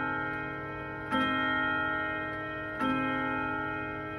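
Hermle grandfather clock striking the hour: two evenly spaced ringing strokes about 1.7 seconds apart, each fading slowly, with the ring of the stroke before still sounding. The movement ticks under the strokes.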